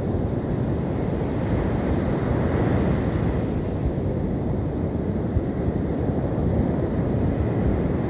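Sea surf washing onto a sandy beach, with wind rumbling on the microphone: a steady low rushing noise with no distinct events.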